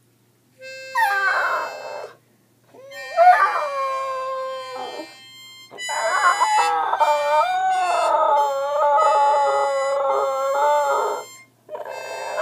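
A dog howling along to a harmonica: several howls that rise and then hold or waver in pitch, the longest lasting about five seconds, over steady held harmonica notes. Each howl breaks off into a brief pause before the next begins.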